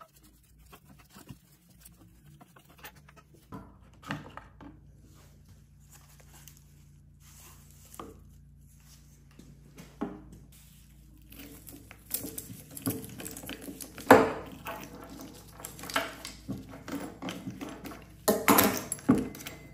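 Small metal clicks, scrapes and rattles from taking apart a 1982 Poulan 1800 chainsaw's chain side cover, bar and saw chain. The sounds are sparse at first and get busier in the second half, with the loudest clattering near the end as the bar and chain are lifted off.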